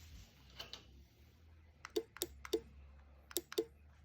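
Short sharp clicks from a 433 MHz 4-channel remote-control relay module and its remote being worked by hand. There are about nine clicks, several in quick pairs, over a faint steady hum.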